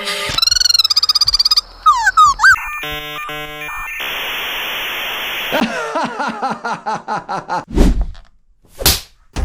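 A string of electronic sound effects: a fast warbling tone, quick pitch swoops, blocky computer-like beeps, about a second and a half of static hiss, a run of falling chirps, then two short low bursts near the end.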